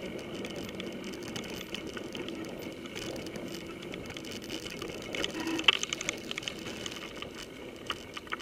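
Mountain bike rolling over a dirt forest trail, heard through a handlebar-mounted camera: steady tyre and rolling noise with constant small rattles and clicks from the bike, and a louder jolt a little over halfway through.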